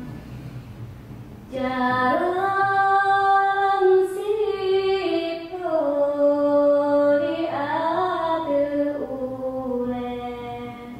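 Saman chant sung unaccompanied by young voices in unison: a quiet low hum, then about a second and a half in a loud sung line of long held notes that step down and slide up in pitch, fading toward the end.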